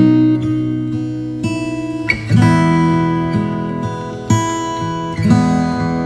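Background music: guitar playing chords, a new chord struck every second or so.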